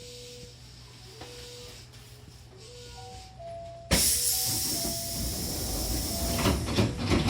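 Hankyu train's air-operated sliding doors working: a sudden loud hiss of released air about four seconds in that lasts about three seconds, with several knocks near the end as the door panels move and meet.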